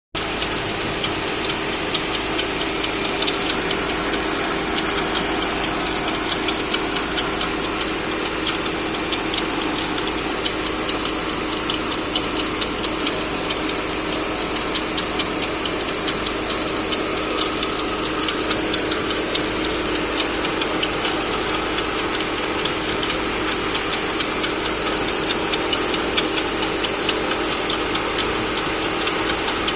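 Engine running steadily with a fast, even ticking or knocking over its hum: the strange noise the engine is making.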